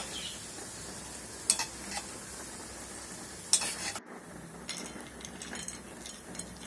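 Sliced nuts sizzling in hot ghee in a wok, with a metal ladle and wire strainer clinking against the pan twice. About four seconds in the sizzle cuts off, and light clicks follow as the fried nuts are tipped from the wire strainer onto a plate.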